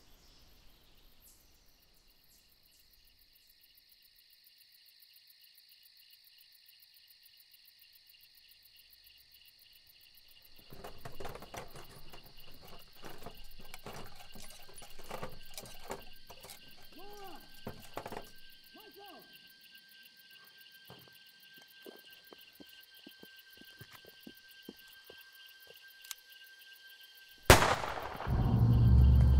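Crickets and other insects chirping steadily in a night forest. About ten seconds in, rustling and clattering of things being handled and rummaged through, with a few short squeaks. Near the end a sudden loud hit, then loud, low music.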